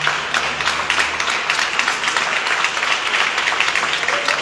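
Congregation applauding: dense, steady clapping.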